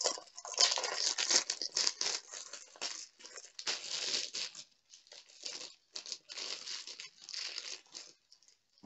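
Clear plastic packaging crinkling and crackling as it is handled, dense for the first half and then in sparser bursts with short pauses.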